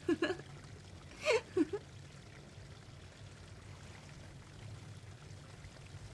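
A woman's soft laugh, two short bursts in the first couple of seconds, then only a faint low hum.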